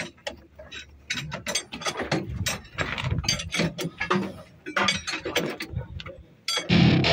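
Metal hand tools working on a Caterpillar excavator's track roller: an irregular run of sharp metallic clicks and clanks, several a second. Loud music with a guitar cuts in near the end.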